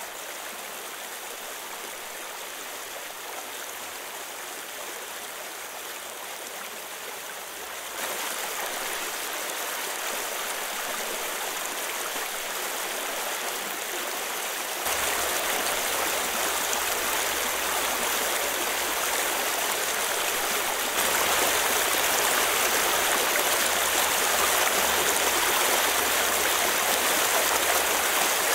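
Water of a large spring welling up and flowing across its pool in a steady rushing stream. The sound gets louder in three sudden steps, about a quarter, a half and three-quarters of the way through.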